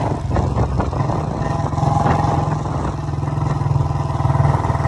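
Motorcycle engine running steadily as the bike cruises along, heard from on the moving bike.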